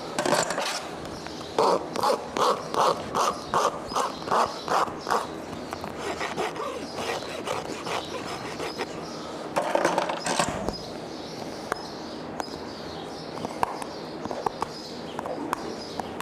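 Farrier clinching horseshoe nails on a horse's hoof with hand tools. A few seconds in comes a run of about nine quick, rhythmic strokes, followed by scattered sharp taps and a louder burst of scraping about ten seconds in.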